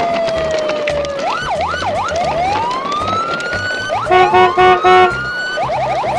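Police siren: a long falling wail, then quick rising-and-falling yelps and rising sweeps, with three loud beeps about four seconds in. A music beat runs underneath.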